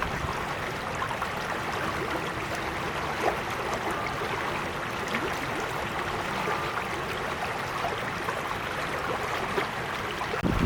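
Small creek flowing steadily over stones, a continuous babbling and gurgling of water.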